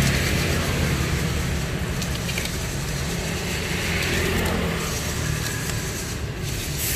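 Steady low rumble and hiss of street background noise.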